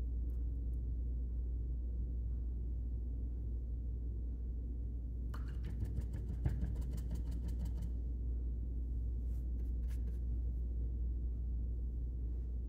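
Steady low hum, with a few seconds of quick light clicks and taps about halfway through as painting supplies are handled beside the water cup and paint bottles, and a few more clicks a little later.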